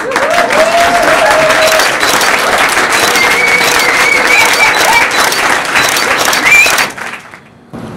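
Applause from a small audience, with a couple of voices calling out over the clapping; it cuts off suddenly about seven seconds in.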